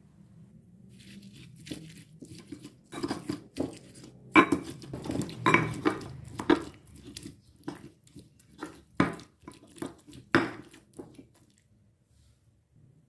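Kitchen food-preparation handling noises: an irregular run of sharp knocks, clacks and crinkles, loudest through the middle, over a faint low hum.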